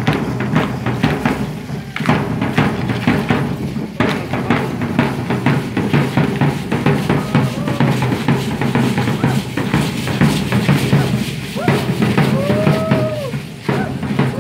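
A hand-carried double-headed procession drum beating steadily for matachines dancers, with their rattles and steps mixed in. Near the end, a short tone rises and falls over the drumming.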